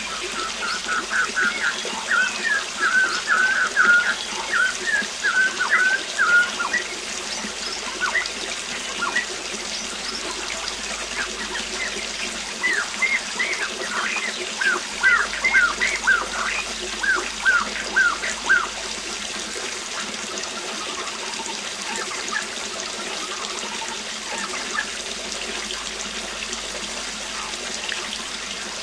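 Waterfall rushing steadily, with a songbird singing quick runs of short chirps over it, once in the first six seconds or so and again, as a string of short falling notes, from about 12 to 19 seconds in.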